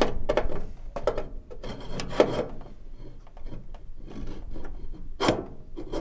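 Inspection mirror on its handle scraping and knocking against the furnace's sheet-metal burner compartment as it is slid into position: a few short scrapes and knocks, the sharpest about five seconds in.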